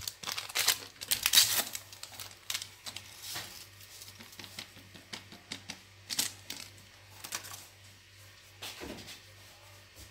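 Paper sachets of baking powder crinkling and being torn open: a quick run of crackles, loudest in the first two seconds, then scattered lighter crackles.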